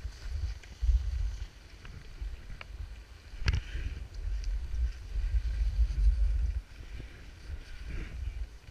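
Wind buffeting the camera's microphone, a low rumble that swells and drops, with a few short clicks and knocks; the sharpest comes about three and a half seconds in.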